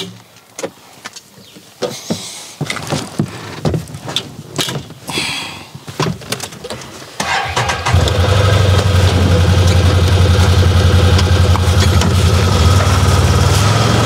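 A few seconds of scattered knocks and clatters, then a Can-Am Traxter HD8 side-by-side's V-twin engine starts about seven seconds in and idles steadily.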